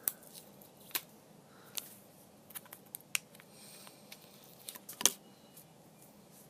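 Scattered small clicks and taps of objects being handled, about a dozen, the sharpest about five seconds in.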